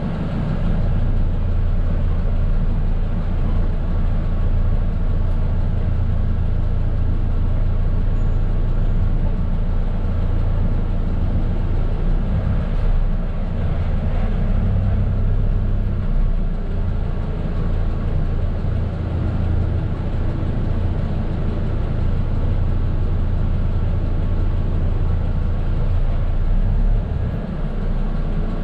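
Mercedes-Benz OF 917 medium bus's diesel engine running, heard from inside the driver's cab as a steady low rumble while the bus creeps along at walking pace.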